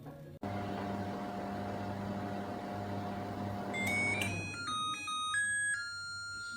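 Microwave oven running with a steady hum, which stops about four seconds in. A short electronic melody of pure beeping tones follows, stepping between pitches: the oven's end-of-cycle signal.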